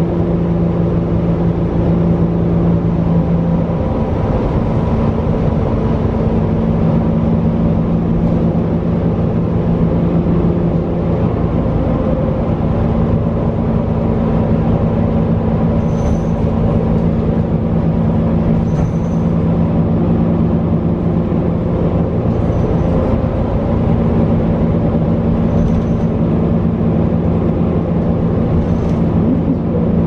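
Cummins L9 straight-six diesel of a New Flyer XD40 transit bus heard from inside the passenger cabin, running steadily with a low drone and road noise while the bus is under way. Faint light clicks or rattles come roughly every three seconds in the second half.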